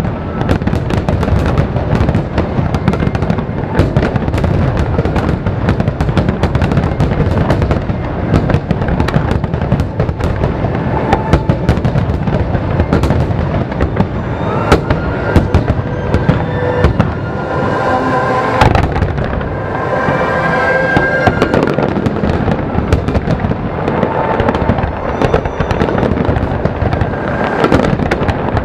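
Large aerial fireworks display: a dense, continuous barrage of bangs and crackling bursts with no let-up.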